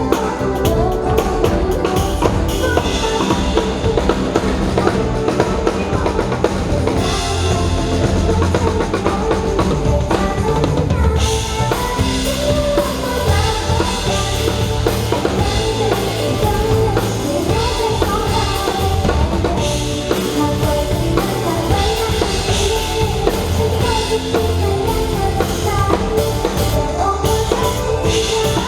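A live band playing a pop-rock song with a full drum kit (kick drum, snare and rimshots) driving a steady beat under pitched instruments.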